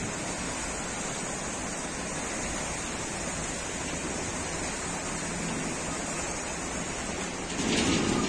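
Turbulent river water rushing and churning below a barrage, a steady hiss of flowing water, with a short louder swell near the end.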